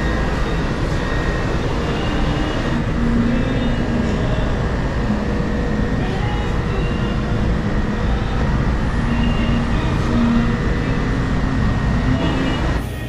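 Steady background din inside a shop: a continuous low rumble and hum with a thin steady tone and faint, indistinct voices. It cuts off abruptly near the end.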